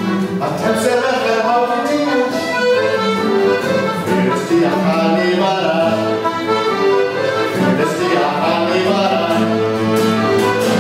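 Accordion and acoustic guitar playing a traditional Welsh folk tune together, steady and continuous.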